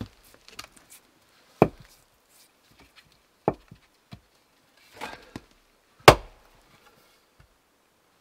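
Axe and firewood knocking on a stump chopping block: four separate sharp wooden knocks, the loudest about six seconds in as the axe bit is struck into the top of a small upright stick.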